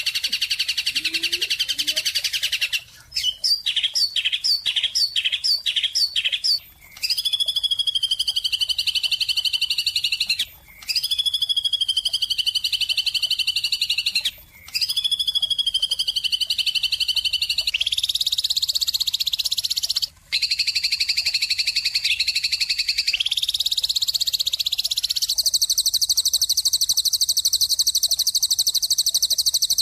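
Bird chirping: a run of quick, evenly repeated chirps about two a second, then long, high, sustained calls that cut off abruptly every few seconds.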